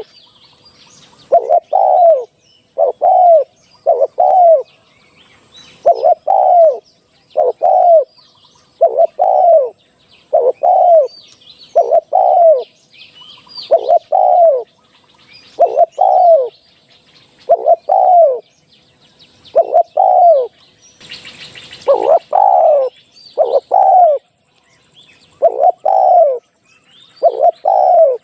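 Spotted dove cooing over and over, loud falling coo notes in runs of two or three, the calls of a decoy bird used to lure wild spotted doves. Fainter high chirps sound behind it, and a brief burst of rustling noise comes about 21 seconds in.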